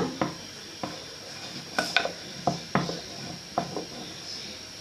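Small tools knocking and clicking on a tabletop while play dough is kneaded and worked, about ten irregular light knocks.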